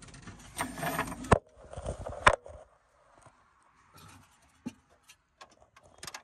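Metal spanners being handled: a scrape, then sharp metallic clinks, the loudest about two seconds in, followed by a few faint taps.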